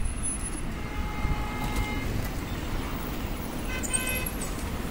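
Street traffic at a busy intersection: a steady low rumble from a stream of electric scooters, e-bikes and cars pulling away. A short horn beep comes about four seconds in, and fainter pitched tones sound around one to two seconds.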